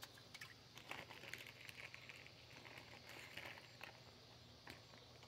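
Near silence, with faint scattered clicks and brief soft rustles.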